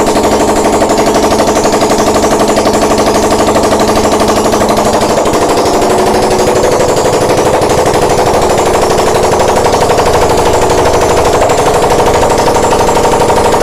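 Suzuki Satria FU motorcycle's swapped-in Suzuki GSX engine running loudly, its exhaust giving a fast, even, rattling beat.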